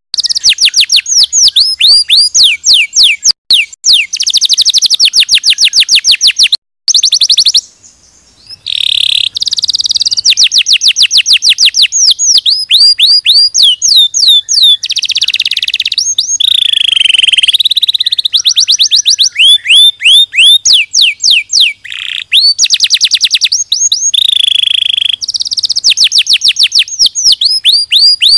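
Domestic canary singing: long, fast trills of repeated notes that sweep down in pitch, many a second, broken by a few short pauses and a few held whistled tones.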